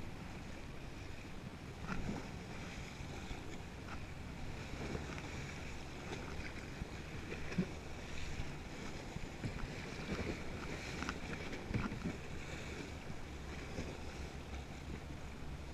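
Double-bladed kayak paddle dipping and splashing in choppy water, with water sloshing against the kayak's hull and a few sharper splashes. Wind buffets the microphone.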